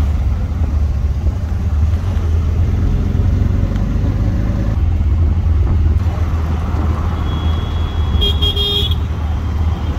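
Motor traffic with a steady, loud low engine rumble, and a vehicle horn honking briefly near the end.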